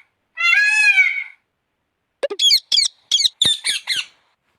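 Peacock calling: a long wailing call, then about two seconds in a quick run of six short, sharp squawks.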